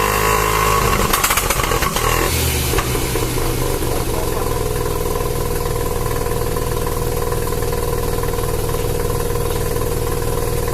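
Mazda RX-7's 13B rotary engine, on its stock exhaust, held at raised revs and then let fall, with a few sharp crackles as it comes down. It then settles about two seconds in to a steady idle.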